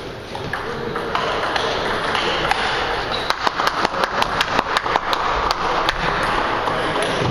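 Table tennis ball in a fast rally: quick, sharp clicks of bat hits and table bounces, about six a second, starting about three seconds in and lasting about two seconds, over a steady background hiss.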